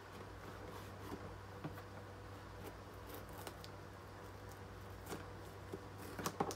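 Faint scattered rustles and clicks of a heavy cardboard package being handled, with a quick run of sharper clicks near the end, over a low steady hum.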